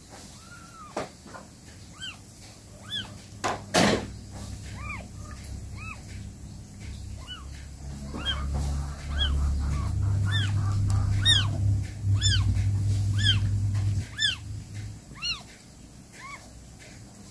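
Newborn kitten mewing: many short, high-pitched cries that rise and fall, sparse at first and then coming quickly one after another. A single sharp knock sounds about four seconds in.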